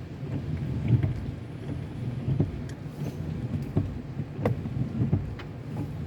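A car driving in the rain: a steady low rumble of the car and road, with irregular sharp ticks of raindrops hitting the car, one louder tick about four and a half seconds in.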